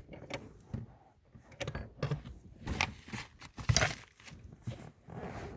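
Metal hand tools clinking and rattling: a socket extension and socket being handled and fitted together, with a string of irregular clicks and knocks, the loudest a little before four seconds in.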